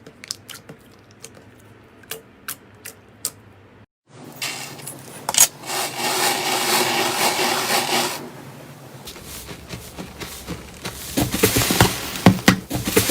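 Slime being handled in a few short clips: scattered sharp crackles and pops, a sudden break about four seconds in, then a steady rushing noise for about four seconds, then dense crackling that builds near the end.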